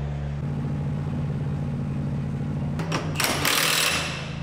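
Pneumatic wheel gun (air impact wrench) run on a race car's wheel nut: a click about three seconds in, then a loud hissing, rattling burst lasting about a second.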